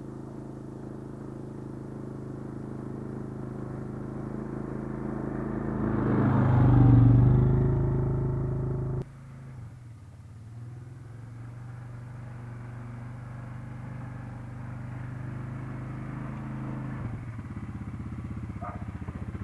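A 200 cc quad bike's engine running, growing louder to a peak about seven seconds in, then dropping suddenly about nine seconds in and running on steadily.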